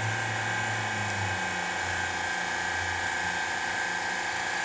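Hydraulic pump of a BWS CC132 guillotine cable cutter running steadily with a low hum and a constant high whine, driving the blade through a 5-inch XLPE power cable under load.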